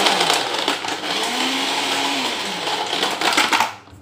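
Electric countertop blender running, crushing ice cubes and mango pieces, with the ice clattering in the jar; the motor cuts off near the end.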